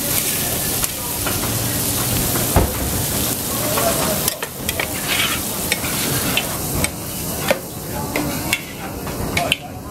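Skewered octopus sizzling on a hot flat-top griddle, with a metal spatula scraping and clacking against the steel plate. The sizzle is dense at first and thins out after about four seconds, while the sharp spatula taps and scrapes carry on.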